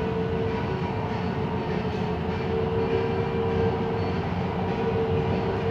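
Siemens Inspiro metro train running between stations, heard from inside the carriage: steady rumble of wheels on the track with a steady traction-motor whine.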